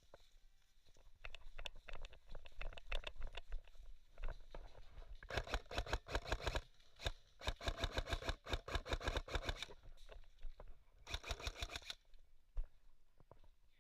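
Airsoft gun firing in rapid runs of sharp clicking shots, three runs in the second half, the middle one the longest, with scattered single clicks before them.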